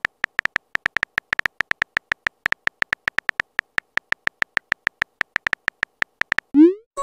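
Simulated phone-keyboard typing clicks from a texting-story app: short pitched ticks at a quick, slightly uneven pace, about six a second. Near the end a rising swoosh and a chord chime sound as the message is sent.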